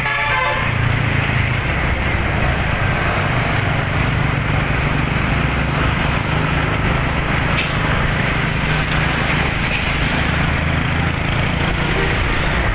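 A multi-tone telolet bus horn tune cuts off about half a second in. After it, a vehicle engine runs steadily under road and wind noise.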